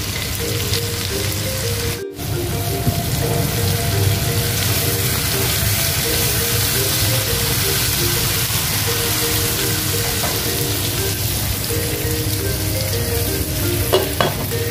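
Steak frying in a hot pan, a steady sizzle, under background music. Both break off for an instant about two seconds in.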